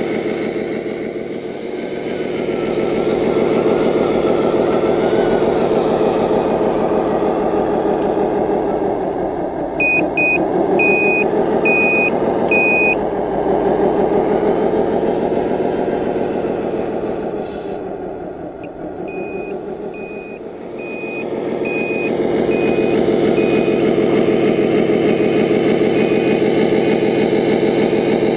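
Simulated diesel engine sound from a scale RC Scania 8x8 dump truck's sound unit, running and rising and falling in pitch as the truck drives. Two runs of reversing beeps, about one and a half beeps a second, sound about a third of the way in and again from about two thirds in, as the truck backs up.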